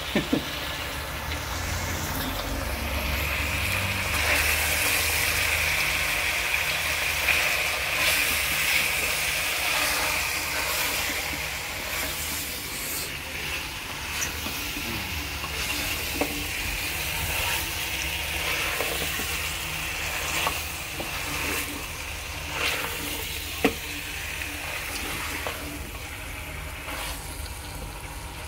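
Food frying and sizzling in a pot, a steady hiss with occasional sharp clicks.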